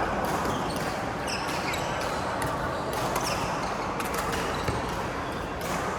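Badminton rally: repeated sharp racket hits on the shuttlecock and footfalls on the court at irregular intervals, over a steady background of hall noise.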